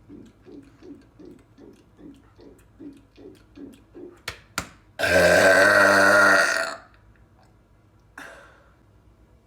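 A man gulping soda in steady swallows, about two and a half a second. A couple of sharp clicks follow, then one loud, long burp of nearly two seconds, and a short breath out.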